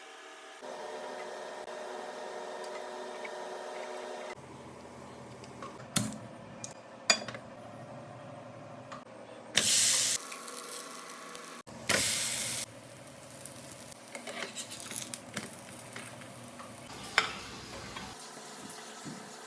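Rice dumplings sizzling as they pan-fry in a little oil, with scattered sharp clicks and two short louder spells of hissing near the middle.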